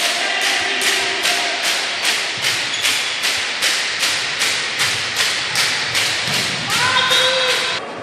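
Steady rhythmic percussion in a sports hall, about two and a half sharp beats a second, with voices faintly underneath. There is a short held shout near the end, and then the beat stops suddenly.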